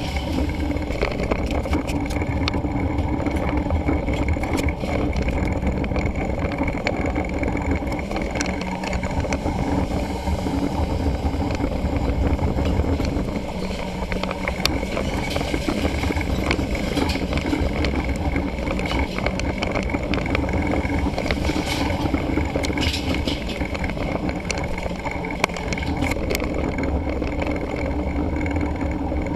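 Wind rushing over the microphone of a camera riding on a moving mountain bike, with steady road rumble from the tyres and frequent small clicks and rattles from the bike and camera mount.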